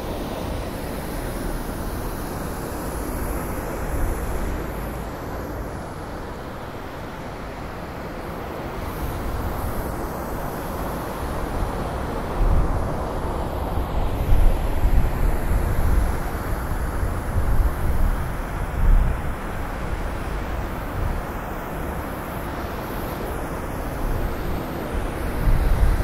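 Blizzard wind blowing steadily, with stronger gusts that rumble low around the middle and again near the end.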